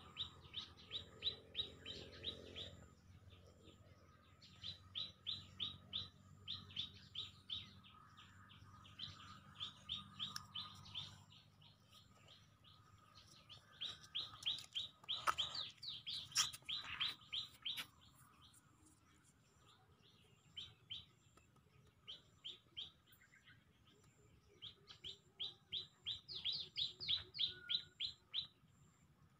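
A bird calling in rapid series of short, high, repeated chirps, about four or five a second, in bouts of a few seconds separated by short pauses; the bout near the middle is the loudest.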